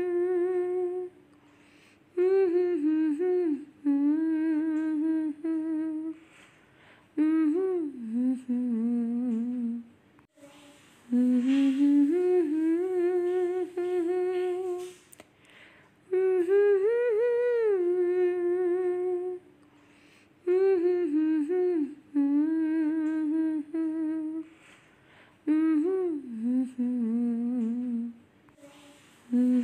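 A voice humming a slow wordless melody, in phrases of a few seconds with short pauses between them.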